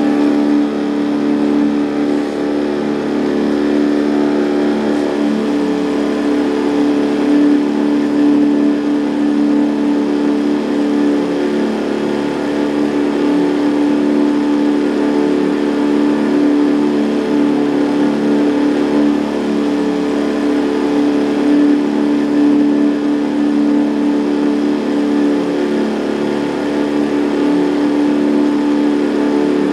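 Outboard motor running at a steady speed, a constant drone that holds the same pitch throughout.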